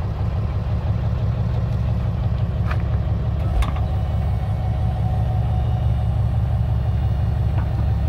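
Pickup truck engine idling steadily as the truck backs slowly under a fifth-wheel trailer's hitch, with two light knocks near the middle.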